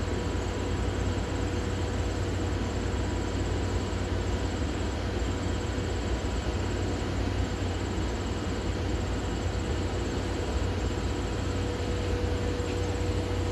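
Steam locomotive moving slowly in reverse toward its train for coupling: a steady rumble and hiss with a constant whine underneath, no clanks or knocks.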